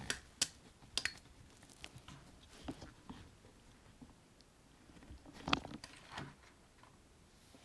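Faint scattered clicks and small knocks from hands handling a small camcorder, with a short cluster of them about five to six seconds in.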